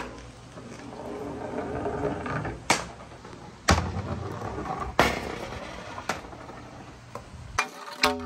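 A single ball rolling along a wet, perforated board track with wooden rails: a rumbling roll that grows louder over the first couple of seconds, then four sharp knocks about a second apart as it strikes the course.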